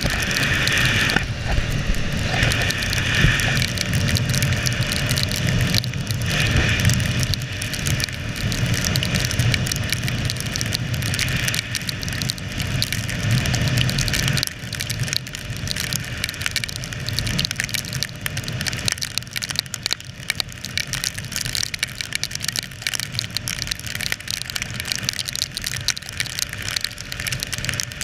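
KTM Duke 390 single-cylinder engine running at highway cruising speed in the rain, mixed with wind rush and tyre hiss on the wet road. The sound drops somewhat about halfway through and stays steady after that.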